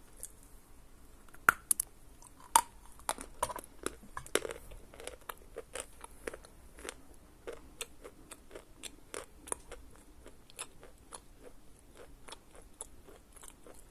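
A lump of Khrapovsky chalk being bitten and chewed. A few sharp cracks come about one and a half to two and a half seconds in as a piece is bitten off, followed by a long run of dense crunching as it is chewed.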